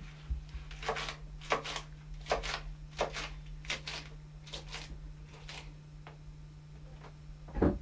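Kitchen knife chopping lettuce on a plastic cutting board: crisp, irregular cuts, often in pairs, over a steady low hum. A louder low thump comes near the end.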